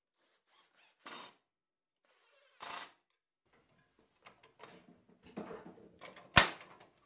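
White steel folding shelf brackets being swung open and folded on their hinges, with irregular metal clicking and rattling and one sharp, loud clack about six seconds in. Two brief bursts of noise come before it, about one and three seconds in.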